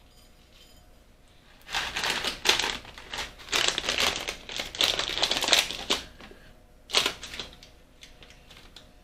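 Plastic packaging crinkling as it is handled, in a run of crackles for about four seconds and another short crinkle about seven seconds in.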